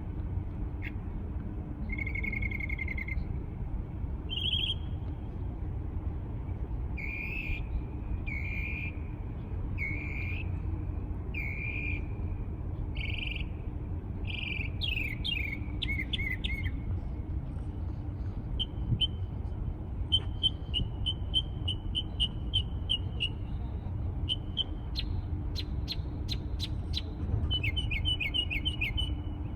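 A songbird singing short whistled phrases about a second apart, then fast runs of rapidly repeated notes in the second half, over a steady low background rumble.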